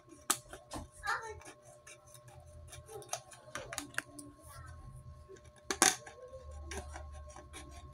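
Small scissors cutting through a thin plastic bottle: a run of short, crisp snips and plastic crackles, the loudest a little before six seconds in.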